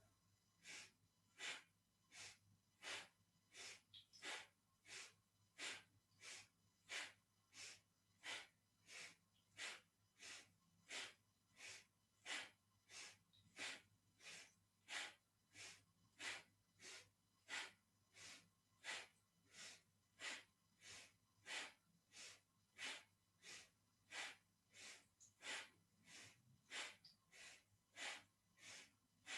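Faint, rapid rhythmic breathing: short, sharp inhales and exhales at a steady pace of about three every two seconds, paced to a yoga exercise of alternating shoulder lifts.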